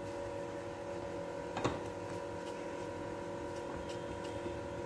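Red silicone spatula stirring thick cheese cream in a saucepan: faint scraping and tapping against the pot, with one sharper knock about a second and a half in, over a steady hum.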